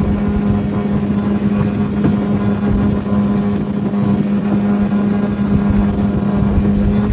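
1996 Sea-Doo Sportster jet boat's two-stroke engine running at a steady speed, a constant hum with no change in pitch, with wind buffeting the microphone.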